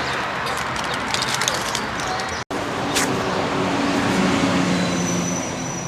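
Steady noise of road traffic, with some low hum after a sudden silent break about halfway through, where the recording cuts.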